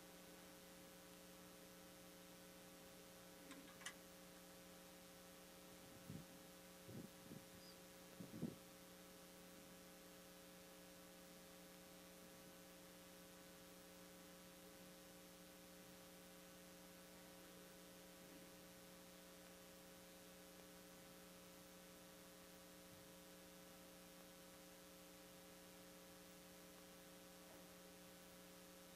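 Near silence with a steady electrical hum from the sound system, made of several fixed tones. A few faint clicks and soft knocks come between about four and eight seconds in.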